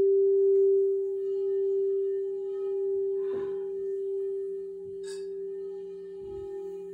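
A crystal singing bowl rings on one steady low-pitched tone that slowly fades. Two faint brief noises, a soft rustle and a small click, sound about three and five seconds in.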